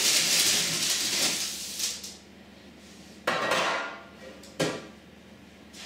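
Baking paper with cookies scraping as it slides off a metal baking tray for about the first two seconds. Then two metal clanks, the first ringing briefly, about a second and a half apart, as the baking tray is set down.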